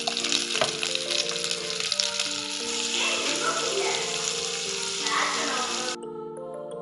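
Capsicum strips frying in hot oil with garlic in a pan: a dense sizzle with scattered clicks. The sizzle stops abruptly about six seconds in, leaving background music.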